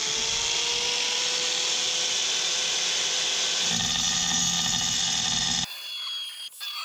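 Hand-held angle grinder cutting a curve through a floor tile, its whine rising to full speed in the first second. About four seconds in the cut takes on a deeper sound, and near the end the grinding stops abruptly, leaving faint scraping and squeals.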